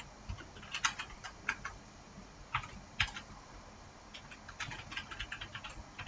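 Typing on a computer keyboard: irregular keystrokes in short runs with pauses between.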